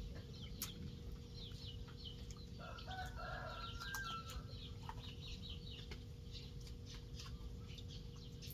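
Chickens heard faintly, with many short high peeps repeating throughout and a longer chicken call from about three seconds in that lasts over a second.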